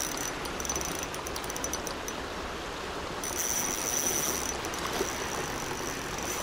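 Fast river current rushing steadily, with a thin high tone coming and going above it.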